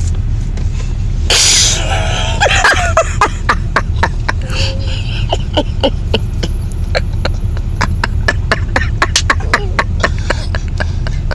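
A sleeping person's throat: a loud cough-like snort about a second and a half in, then a long run of fast, irregular wet clicks and crackles from saliva caught in the throat, over a steady low rumble.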